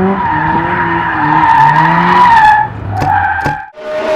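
Car tyres squealing in a skid, a loud wavering squeal for about three seconds. Two sharp clicks follow, then a short break and a rising rush of noise at the very end.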